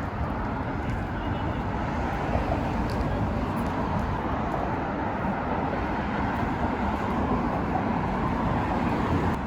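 Steady rumble of road traffic, a continuous even noise of passing vehicles and tyres.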